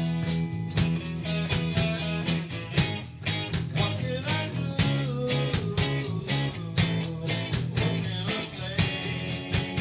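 Live rock band playing, with electric guitars, electric bass and a drum kit keeping a steady beat.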